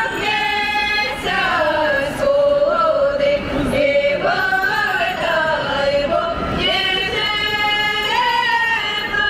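Ukrainian folk choir, mostly women's voices, singing unaccompanied in long held notes that glide up and down in pitch.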